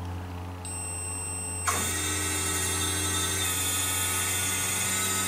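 Small electric motor in a model indoor-soccer goal starting with a click about a second and a half in, then running with a steady whine as it drives the goal's panel back up from small-goal to full-goal size. A low steady hum sits underneath.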